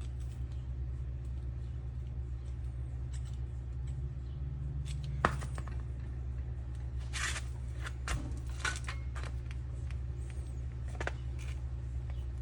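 Scattered light clicks and knocks of small starter parts being handled and fitted on a workbench, over a steady low hum.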